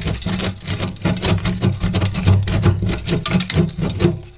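Crumbling cement render and brick pieces being pried out around a window frame, a rapid, irregular clatter and scrape of loose rubble breaking away and falling.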